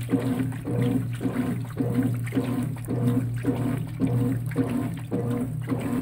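Consul top-load washing machine filling: water rushing in through the dispenser into the tub over a steady low hum, with a pulsing about twice a second.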